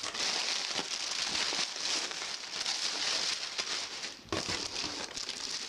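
Packing wrap being handled and pulled out of a shipping box, crinkling and crackling continuously.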